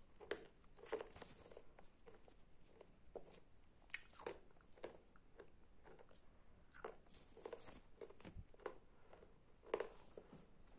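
Faint, irregular small clicks and crunches close to the microphone, scattered with no steady rhythm and stronger near the start and near the end.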